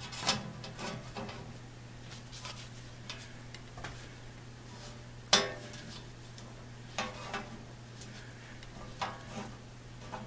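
Dunlop saw set clicking and clinking on the steel blade of a crosscut handsaw as it is squeezed and moved from tooth to tooth, setting the teeth. The metallic clicks come at irregular intervals, and the loudest is about halfway through.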